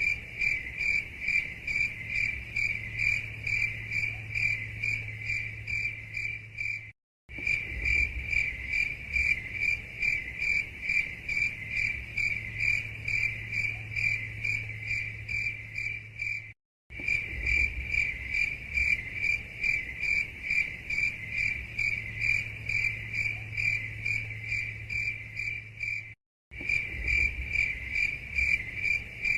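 Cricket chirping steadily in fast, regular pulses, about three a second, over a faint low hum. The recording is looped, and the sound cuts out completely for a fraction of a second about every nine and a half seconds before restarting.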